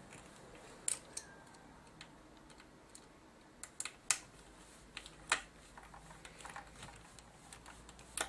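Scattered sharp clicks and taps, about ten spread irregularly over several seconds, as the body of a JVC GY-HD201E camcorder is handled and its parts fitted back together during reassembly.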